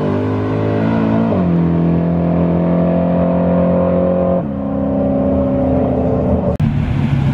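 Car engine running hard at high revs, its pitch stepping to a new level about a second and a half in and again around four and a half seconds in. Near the end the sound breaks off abruptly and a lower, steady engine note takes over.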